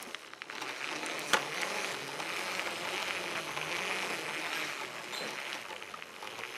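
LEGO 9-volt train running on its track, heard up close from on board: a steady whirring rattle of the motor and wheels, with one sharp click about a second in.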